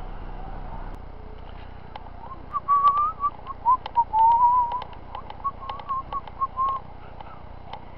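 A person whistling a wavering tune, starting about two and a half seconds in, with short clicks scattered through it. Before that, a low steady rumble cuts off about a second in.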